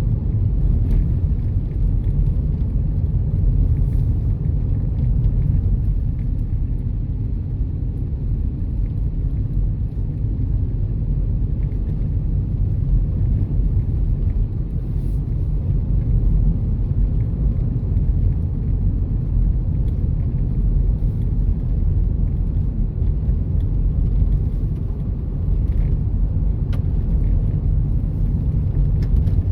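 Steady low rumble of a car driving: engine and tyre noise on the road heard from inside the car.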